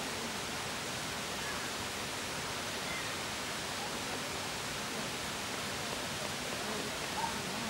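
Steady rushing hiss of a waterfall, falling water as an even, unbroken noise.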